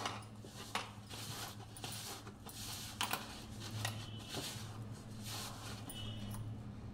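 Hand mixing buckwheat flour and grated potato into a dough in a plastic bowl: soft, irregular scraping and rubbing with light clicks, over a steady low hum.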